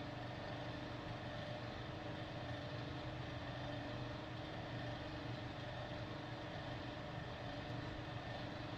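Ceiling fan running steadily on high with a steady motor hum. It has a bad capacitor and doesn't really work well on high.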